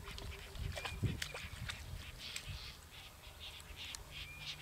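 African wild dogs making their high, bird-like twittering calls: short chirps again and again, with a brief thin whistle about a second in and again near the end, over a low steady rumble.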